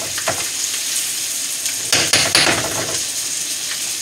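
Ribeye steak frying in butter in a pan, a steady sizzle, with a few sharp clinks and knocks of kitchenware, the loudest cluster about two seconds in.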